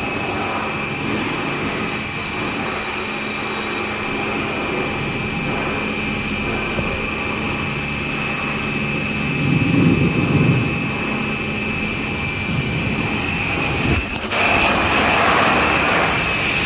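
Machinery running steadily in a car service workshop: a constant high whine and a low hum over even mechanical noise, with a louder low rumble about ten seconds in and a short break about fourteen seconds in.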